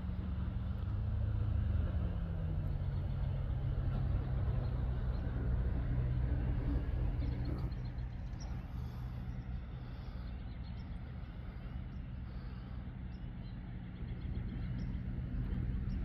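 A motor vehicle engine running with a low steady hum, its pitch rising slightly and then dropping back in the first couple of seconds.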